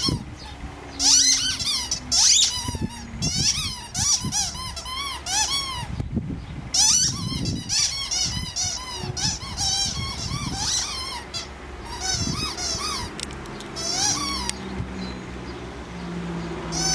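Squeaky toy squeaking in quick bursts of many short, high squeaks, several a second, as it is chewed and squeezed over and over. The squeaking stops a few seconds before the end.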